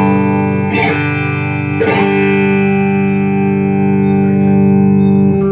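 Electric guitar chord played through a late-1970s Ampeg V4 tube amp head. The chord rings from the start, is struck again about a second in and once more at about two seconds, and sustains until it is cut off suddenly near the end.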